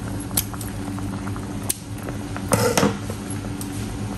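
Water boiling in a stainless steel stockpot of giant freshwater prawns, over a steady low hum. A few sharp clicks and a short louder rustle near three seconds in.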